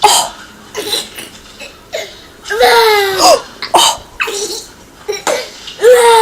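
A toddler making high-pitched "scary" vocal noises mixed with laughter: two drawn-out voiced calls, about two and a half seconds in and near the end, with short sharp laughing bursts between them.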